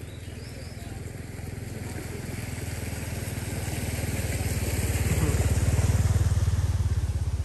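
A small engine approaching, its low, fast pulsing growing steadily louder to a peak about six seconds in, then easing a little as it passes.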